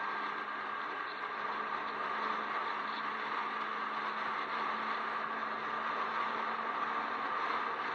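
A Jeep driving at a steady speed: constant tyre and wind noise with a steady drone from the drivetrain underneath.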